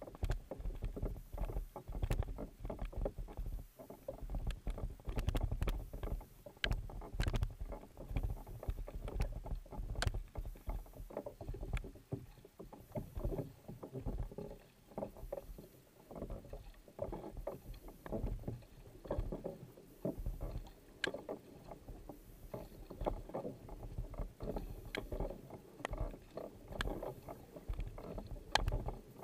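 Kayak being paddled with a wing paddle: the blades dipping in and splashing on alternating sides in repeated, uneven strokes, with water washing along the hull under a low rumble.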